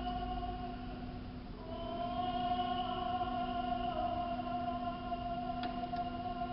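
Old tape recording of synagogue service singing, from the 1947 first service, played back on a laptop: a long held sung note breaks off about one and a half seconds in and a second long note follows, over a steady hum.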